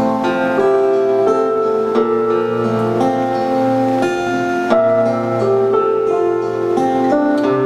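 Instrumental music led by plucked acoustic guitar, notes ringing on and changing every half second or so.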